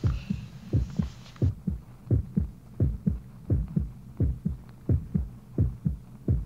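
Rapid low thumping, heartbeat-like, about three beats a second with some beats falling in close pairs, over a steady low hum.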